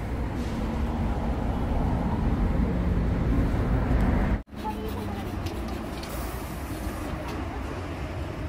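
Busy city street ambience: a steady rumble of traffic with people talking in the background, broken by a short dropout about halfway through.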